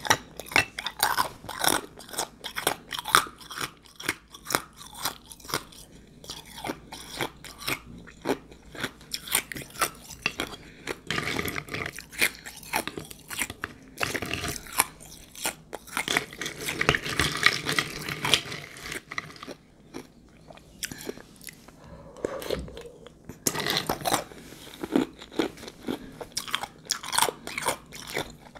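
Close-miked crunching and chewing of ice soaked in juice: rapid, irregular crackles as the ice is bitten and ground between the teeth, with a few short, softer stretches.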